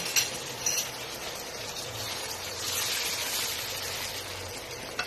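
Whole shrimp sizzling in butter in a stainless steel frying pan while a wooden spatula stirs them, with a few sharp knocks of the spatula against the pan in the first second and once near the end. The sizzle swells briefly about three seconds in.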